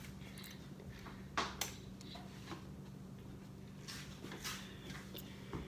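Quiet kitchen with a steady low hum and a few faint light knocks and clicks from handling.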